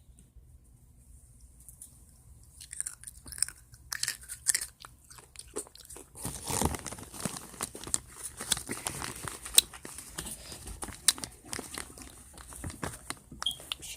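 A person chewing and crunching close to the microphone: a quiet start, then from about three seconds in a dense run of sharp crackles and crunches.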